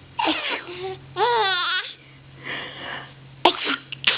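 A baby fussing with short high-pitched whimpers and one long wavering cry, with a sharp burst about three and a half seconds in.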